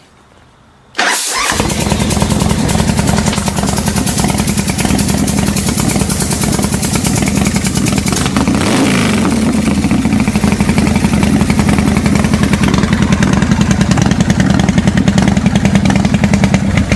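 A RevTech 110 V-twin in a 1986 Harley-Davidson Softail fires up on choke about a second in and runs loudly through Vance & Hines Longshots pipes, a cold start. About halfway there is one short rev.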